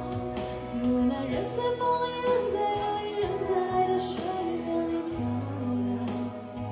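A woman singing a song into a microphone over an instrumental backing track.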